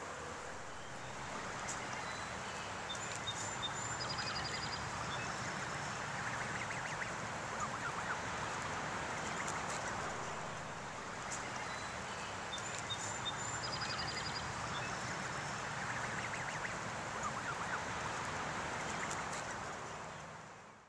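Outdoor yard ambience: a steady background rush with small birds chirping and trilling now and then, the same few chirps coming back twice. It fades out at the end.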